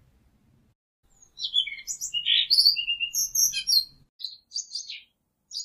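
Small birds chirping and twittering: a quick run of short high chirps and trills starting about a second in, thinning to a few separate chirps near the end.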